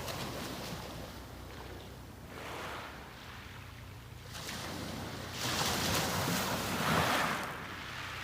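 Sea waves breaking and washing up the beach in a few surges, the biggest wash coming about two thirds of the way in.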